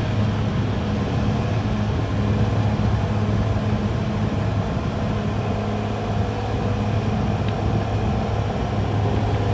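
CAT D6R XL crawler bulldozer's diesel engine running steadily under work, a continuous low drone.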